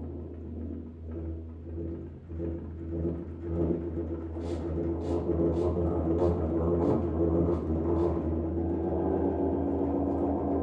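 Prepared tuba sounding a low, sustained drone with pulsing, layered overtones. From about four seconds in, sharp clicks come roughly twice a second over the drone.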